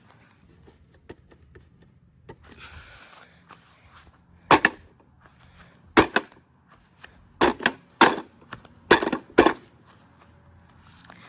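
Toy washing machine being smashed apart: seven sharp, irregularly spaced cracking knocks in the second half, with a few light clicks and a brief rustle before them.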